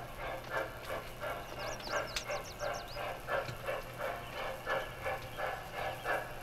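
Steam locomotive sound chuffing at a steady pace, about three exhaust beats a second, over a low steady hum. A short, rapid bird twitter about two seconds in.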